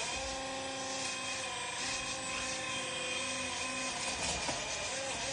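Radio-controlled model excavator's electric drive whining steadily at a high pitch, its pitch wavering and dipping about four seconds in.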